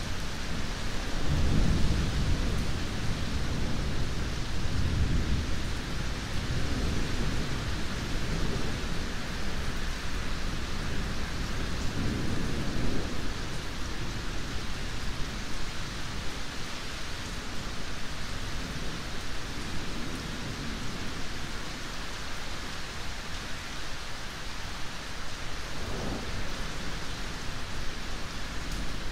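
Steady, even rainfall with rolls of low thunder rumbling over it. The heaviest roll comes a second or two in, further rolls come a few seconds later and again near the middle, and a fainter one comes near the end.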